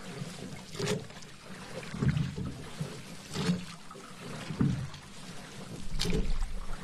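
Paddle strokes in water: the blade dips and pulls about once every second and a quarter, five strokes in all, each with a splash and a gentle wash of water between.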